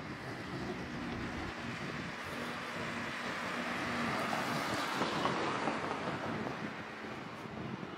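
A road vehicle passing by. Its noise swells to a peak about five seconds in and then fades. A faint low engine hum breaks in and out during the first half.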